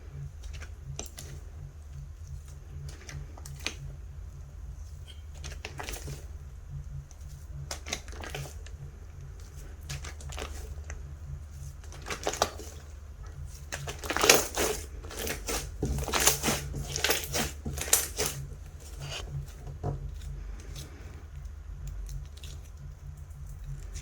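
Clay-mixed slime being worked by hand, giving irregular crackling and popping clicks, with a denser run of louder pops a little past the middle. A steady low hum runs underneath.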